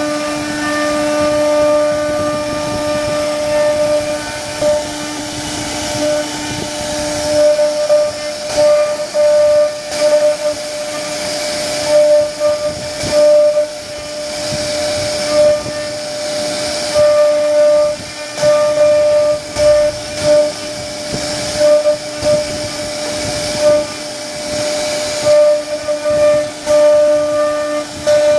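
CNC router spindle running with a steady high whine while its router bit carves a relief pattern into a wooden panel. The hiss of cutting rises and falls again and again as the bit moves through the wood.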